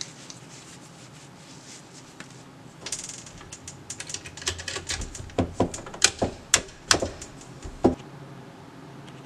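An Anschutz 1416 .22 LR bolt-action rifle being handled and readied for firing. It gives a quick run of sharp metallic clicks and clacks, the loudest clustered between about five and eight seconds in.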